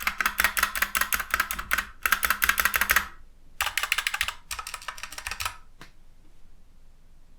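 Typing on a stock Ajazz K680T mechanical keyboard with its original red linear switches: quick runs of keystrokes in bursts, ending with a single key press about six seconds in.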